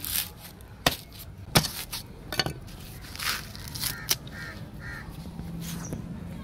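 A coconut being husked with a billhook: four sharp chops of the blade into the fibrous husk over the first four seconds, with the rasp of coir fibre being torn away between them.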